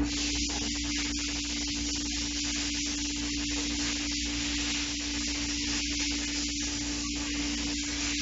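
Steady hiss with a constant low hum, even throughout, with no distinct knocks or clicks.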